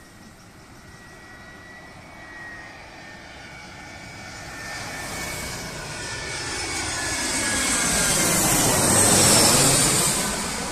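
Twin-engine jet airliner on final approach to land, gear down, passing low overhead: the engine noise grows steadily louder, peaks about nine seconds in as the jet passes over, then begins to fade, its pitch sweeping down as it goes by.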